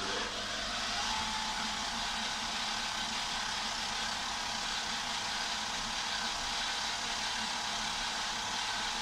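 Small benchtop milling machine running at high speed, its spindle turning a thin homemade long-reach drill made from wire rod. Steady motor whine over a hiss, with a higher whine coming up to pitch and holding about a second in.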